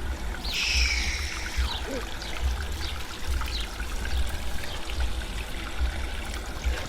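Water trickling, with a low rumble underneath and a brief higher hiss about half a second in.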